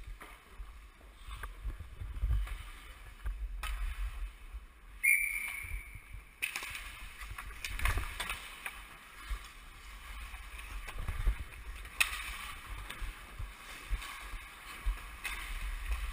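Ice hockey played on a rink, heard from a player-worn camera: skate blades scraping the ice and sticks clacking against the puck and ice, over a low rumble of wind and handling noise on the microphone. A short high tone sounds about five seconds in, and the scraping hiss grows rougher from about six seconds on.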